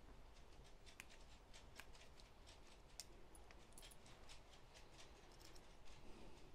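Faint, irregular light clicks and taps of small metal screws and parts being handled and fitted by hand.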